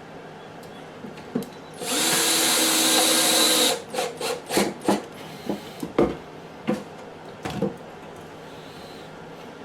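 A drill-driver runs for about two seconds, driving a wood screw into soft pine. It is followed by a series of short, irregular clicks and knocks.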